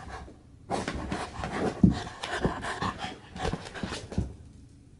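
A freshly bathed, wet small dog rolling and rubbing itself dry on a rug against an ottoman: irregular scuffling of fur on carpet with a few soft thumps, starting about half a second in and dying away about a second before the end.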